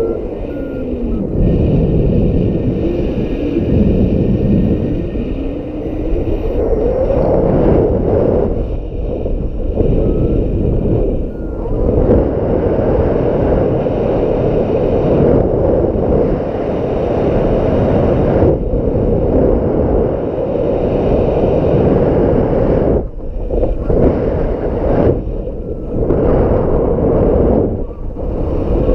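Strong gusting wind buffeting the microphone: a loud, continuous low rumble that briefly cuts out a few times near the end.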